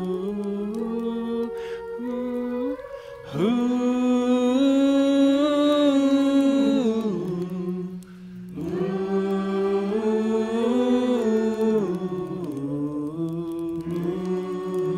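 A slow worship song, sung in long drawn-out notes. Two short breaks between phrases come about three and eight seconds in.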